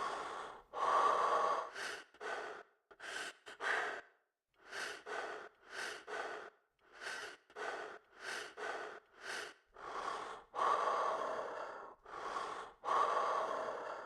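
A person breathing hard: a run of about twenty short, noisy breaths in and out, with a few longer ones in between.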